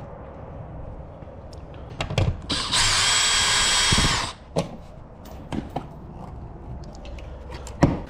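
Power drill running in one burst of about a second and a half, near the middle, with a few clicks and knocks around it.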